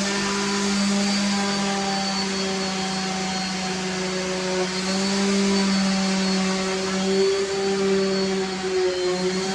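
A small electric motor running continuously, with a steady hum and a whine whose pitch wavers and dips slightly a few times.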